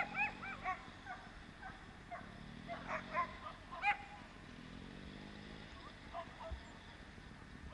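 Sighthounds yelping in quick clusters of short, high-pitched cries with bending pitch, several clusters in the first half and fainter ones later on.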